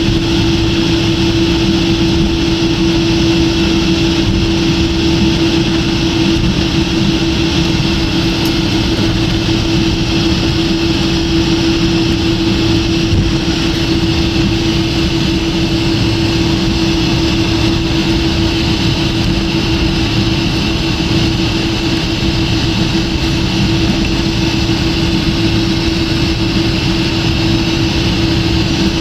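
Airliner cabin noise while taxiing after landing: a steady rush of air and engine noise at idle, with one constant low hum.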